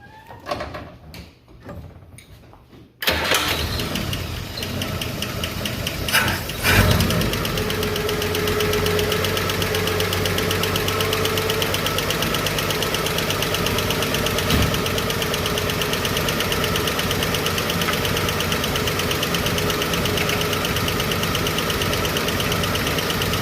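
Chevrolet 235 Blue Flame inline-six starting about three seconds in, rising briefly around six to seven seconds, then settling into a steady idle with a fast, even ticking through it. The tick comes from the valvetrain, where a bad lifter has just been cleaned and its rocker is still loose, not yet adjusted.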